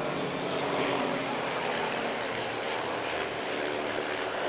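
A formation of six Van's RV-8 light aircraft passing overhead, their 180-horsepower piston engines and propellers running with a steady hum.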